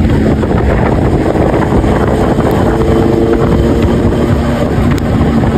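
Motorcycle engine running at a steady cruising speed, with heavy wind noise buffeting the microphone.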